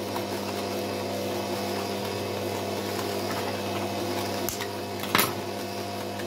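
Kitchen stand mixer motor running steadily at low speed as it beats sugar, butter and eggs. A few sharp cracks of eggshells broken on the bowl, the loudest about five seconds in.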